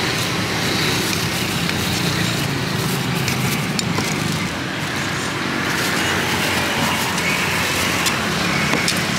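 Steady roadside traffic noise, with an occasional faint knock of a cleaver chopping grilled sausage and meat on a chopping block.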